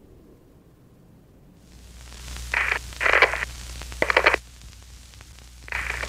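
Electronic static and digital glitch sound effects: a hiss with a low hum swells up about two seconds in, cut by four short, harsh crackling bursts.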